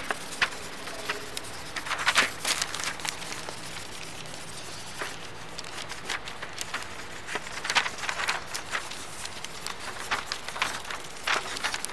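Scattered, irregular taps, clicks and rustles of hands handling paper and drawing materials, over a low hiss.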